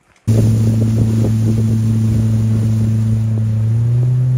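Outboard boat motor running steadily under way: a loud, even drone that cuts in abruptly just after the start and rises slightly in pitch near the end.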